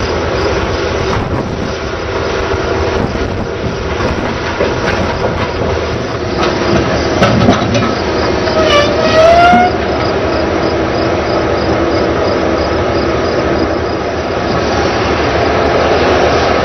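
Railroad work train running steadily with a diesel drone, and a brief rising squeal about nine seconds in.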